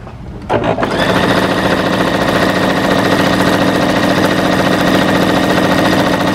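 Electric sewing machine running at a steady speed, stitching a straight seam; it starts about a second in, with a fast, even needle rhythm and a steady motor hum.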